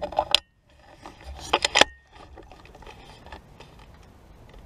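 Shotgun and shells being handled between shots: two short bursts of metallic clicking and clatter, the second ending in a brief ringing tone, then a faint steady outdoor hiss.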